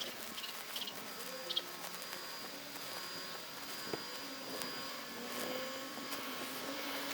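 Faint outdoor background ambience: a few short high chirps in the first two seconds, a thin steady high tone for a few seconds in the middle, and a faint low wavering hum over a quiet hiss.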